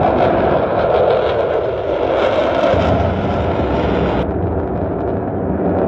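Loud, steady jet noise from the Blue Angels' four F/A-18 Super Hornets flying in diamond formation. The highest part of the noise falls away suddenly about four seconds in.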